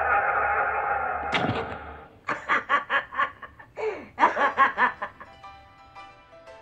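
Film soundtrack: a steady droning tone cuts off with a sudden falling sweep, followed by two bursts of cackling laughter, then a few faint held musical notes.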